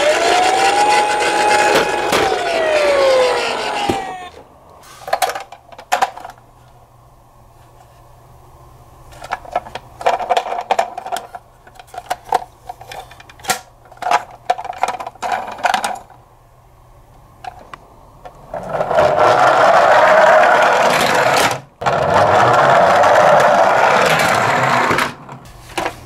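Toy ambulance's electronic siren wailing, its pitch rising and falling, over the whir of its running motor; both cut off about four seconds in. Then scattered clicks and knocks of plastic toy vehicles being handled in a cardboard box, and near the end two stretches of loud whirring, a few seconds each.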